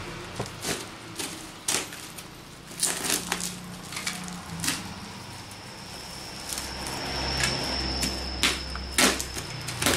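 Plastic stretch wrap, packing tape and cardboard crinkling, crackling and ripping as a parcel is cut and torn open by hand, in irregular bursts with sharp rips about three seconds in and near the end. A thin, high, steady whine joins about halfway through.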